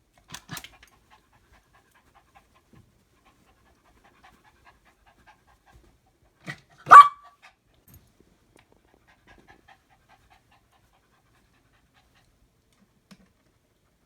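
A dog gives one short, loud bark about seven seconds in, just after a fainter sound, with a brief softer sound near the start; the rest is quiet.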